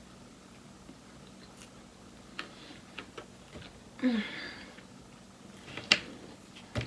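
Close-up chewing of loaded fries with sour cream and ranch: scattered wet mouth clicks and smacks, and a short falling vocal "mm" about four seconds in.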